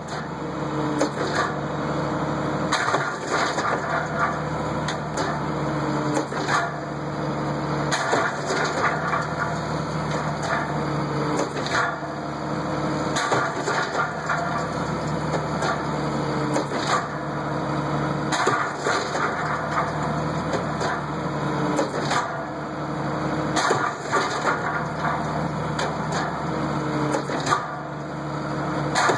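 Cotton module builder packing seed cotton: its engine and hydraulics run steadily while the tramper carriage travels and presses the cotton, with the sound shifting in a repeating cycle about every five seconds. Repeated sharp clanks and cracks come from the moving carriage and compactor.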